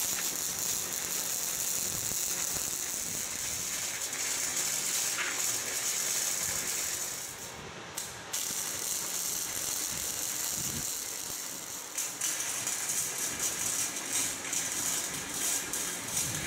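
Titanium Easy Flux 125 flux-core wire welder arc crackling steadily while welding steel frame joints. The arc stops briefly about halfway through, then restarts and runs more unevenly in short spurts near the end.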